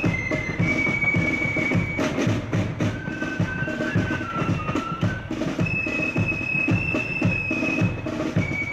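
Marching flute band playing a tune over side drums and a bass drum, with a steady marching beat. The high melody gives way to a flurry of drumming about two seconds in, carries on lower, and returns high about six seconds in.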